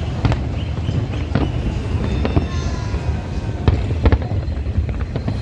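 Aerial fireworks bursting and crackling: irregular sharp bangs, some in quick clusters, over a steady low rumble.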